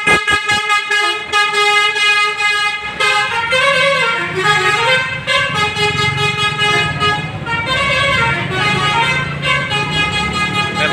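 Bus telolet horn, a Basuri multi-trumpet air horn, playing a tune: a quick run of short toots, then held chords that step from note to note.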